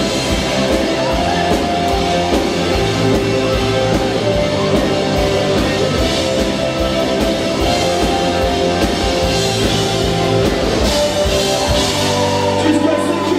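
Live indie rock band playing loud, with electric guitars over a driving drum beat. Near the end the drum beat stops and held guitar chords ring on.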